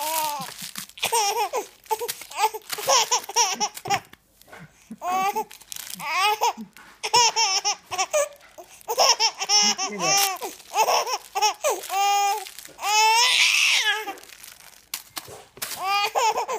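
A baby laughing hard in repeated bouts of high-pitched giggles with short breaths between them.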